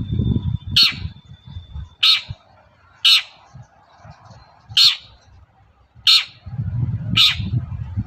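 A long-tailed shrike (cendet) giving six short, harsh, rasping calls about a second apart, with a faint thin whistle under the first two. A low rumbling noise sits under the calls at the start and again near the end.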